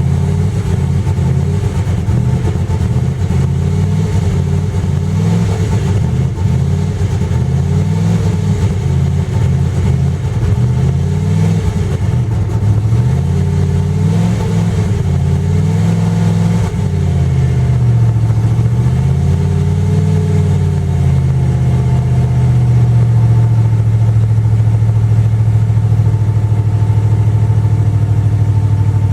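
1995 Jeep Grand Cherokee's 5.2-litre V8 running rough just after a hard cold start, its speed rising and falling unevenly. About twenty seconds in it settles into a steady idle.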